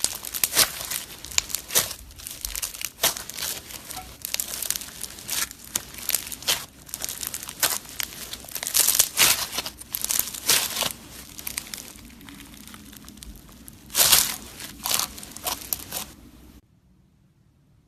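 Slime being squeezed and pressed by hand, with dense, irregular crackling and popping and a few louder clusters of pops. It stops abruptly shortly before the end.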